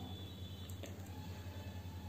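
A steady low electrical hum under faint room tone, with two soft clicks a little under a second in as fingers handle food in a plate of curry.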